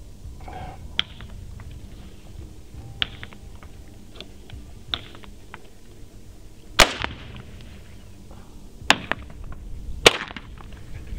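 Three rifle shots in the second half, about two seconds and then about a second apart, preceded by three fainter sharp cracks spaced about two seconds apart.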